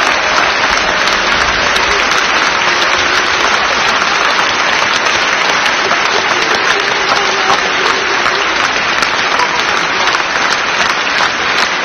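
Large audience applauding: dense, steady clapping that holds at an even level.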